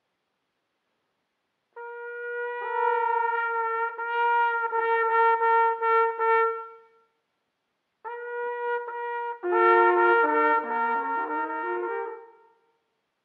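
Two trumpet-family brass horns playing a slow duet. A long held note swells in about two seconds in and fades away, then after a short pause the held note returns and a second horn comes in beneath it on a line that steps downward, before both die away near the end.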